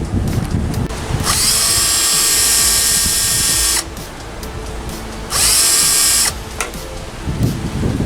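Power drill running in two bursts, one of about two and a half seconds and then a shorter one of about a second. The motor whines up to speed at the start of each.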